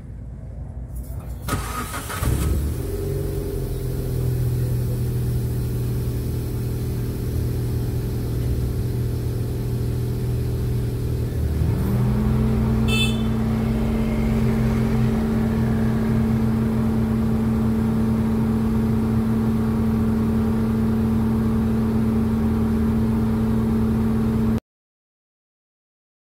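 Proton Preve 1.6 Turbo CFE's turbocharged four-cylinder engine heard at the stock exhaust tailpipe. It starts about two seconds in and runs steadily. About halfway through the engine speed steps up to a higher steady note, which holds until the sound cuts off suddenly near the end.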